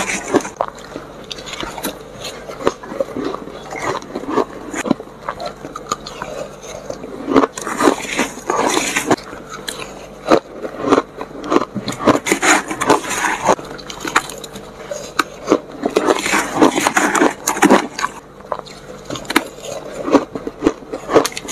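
Close-miked crunching and chewing of matcha-dusted shaved ice, in repeated bursts of crackling, with a metal spoon scraping and clinking against a stainless steel bowl.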